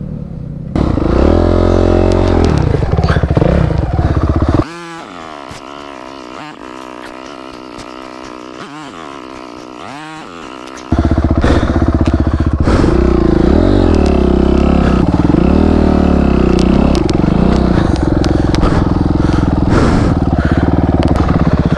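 Motorcycle engine revving unevenly, its pitch rising and falling with the throttle during off-road riding. About five seconds in it drops abruptly to a much quieter stretch, and it comes back loud at about eleven seconds.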